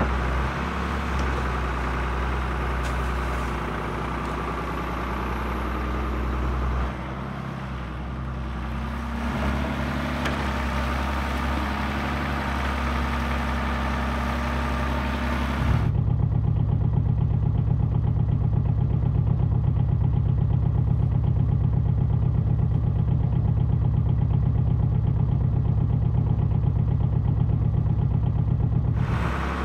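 Diesel engine of a grab dredger running steadily, its note shifting as the bucket digs mud and loads it into a hopper barge. About 16 seconds in the sound cuts to a louder, deeper boat engine drone with a fast even pulse, as from a vessel under way on the river.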